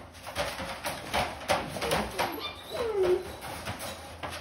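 Rottweiler puppies in a wire crate: a run of clattering knocks as they move about against the crate, and about three seconds in a puppy gives a short falling whine.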